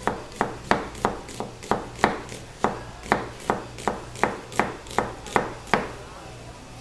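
Chef's knife slicing a red onion on a cutting board: a steady run of sharp knocks of the blade on the board, about three a second, stopping near the end.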